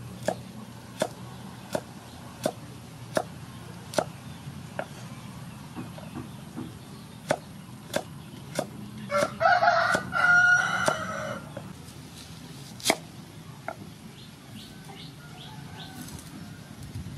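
Cleaver chopping carrot on a thick round wooden chopping board, a sharp knock roughly every three-quarters of a second. About nine seconds in, a rooster crows loudly for two seconds or so over the chopping.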